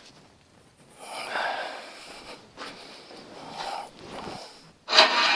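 A man's heavy breathing and low vocal noises under his breath, with no hammer blows.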